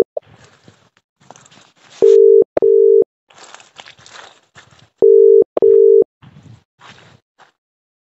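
Telephone ringback tone heard through a phone's speaker while a call waits to be answered: the British double ring, two short steady tones and a pause, repeating about every three seconds, three times.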